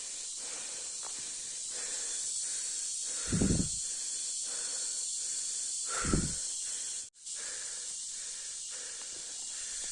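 A person's breathy exhales, two short puffs about three and six seconds in, over a steady high hiss.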